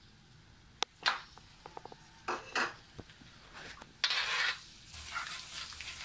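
Minced garlic tipped into hot oil in a metal wok, with sharp clinks of the bowl and spoon against the pan and scraping of a spatula stirring it. A sizzle breaks out about four seconds in and carries on as a steady hiss as the garlic starts to fry.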